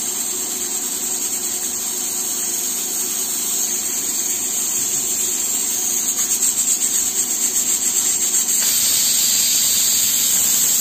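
Aluminium pressure cooker on a gas burner venting steam through its weight valve in a loud, steady hiss: the cooker's whistle, the sign that full pressure has been reached with the dal cooking inside. From about six seconds in, the hiss starts to pulse rapidly and grows a little louder.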